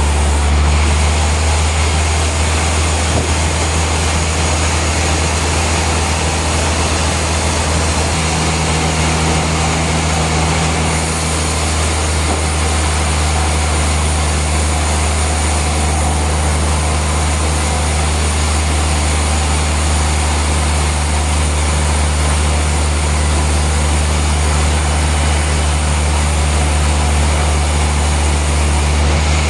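Heavy industrial machinery running in a steady low drone, a constant deep hum under an even hiss, with no distinct cuts, knocks or changes in pace.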